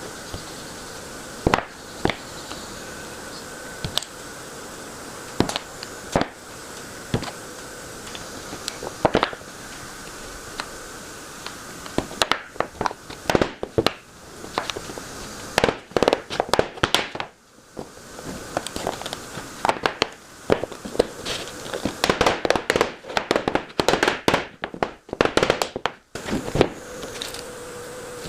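Sharp knocks and clicks of wooden parts and hand tools being handled and set down, a few seconds apart at first, then coming thick and fast through the second half, over a faint steady hum.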